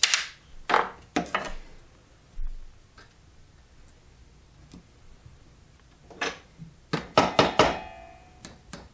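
Sharp metallic clicks and knocks of pliers and hand tools against an electric motor's steel shaft and end housing. A few come in quick succession near the start and a dense cluster comes near the end, one of them ringing briefly.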